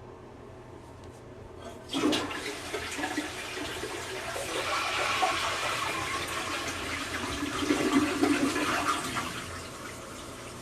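Toilet flushing: a sudden rush of water about two seconds in that runs for about seven seconds, then dies down into the quieter steady hiss of the freshly rebuilt tank refilling.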